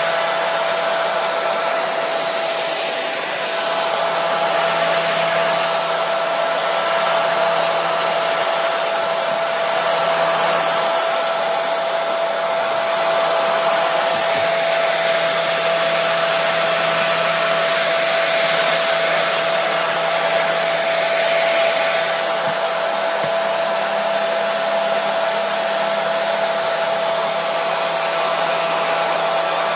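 Hair dryer running steadily: a continuous rush of blown air with a steady motor whine.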